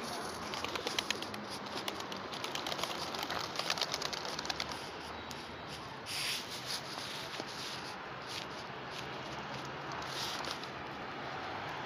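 A flock of feral pigeons on the ground, with a fast run of fine clicks through the first few seconds and a short rush of noise about six seconds in.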